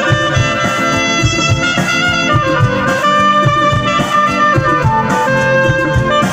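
Instrumental break of a Hindi film song in a DJ remix: a steady bass beat under a held, stepping melody line, with no vocals.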